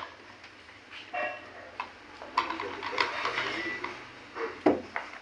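Handling noises of a plastic hand-pull chopper and a plate on a table: scattered light clicks and knocks of the plastic bowl, lid and plate, with one louder knock near the end.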